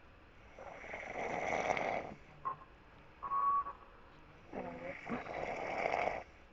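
A sleeping person snoring: two snores, each about a second and a half long and about four seconds apart, with a brief high tone between them.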